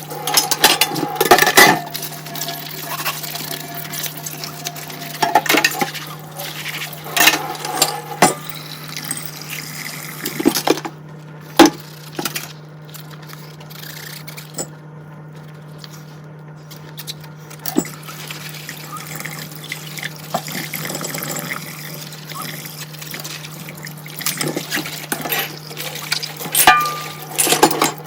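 Dishes being hand-washed in a kitchen sink: tap water running and splashing, with frequent clinks and knocks of dishes against each other and the sink. The running water drops away for a few seconds around the middle. A steady low hum sits underneath.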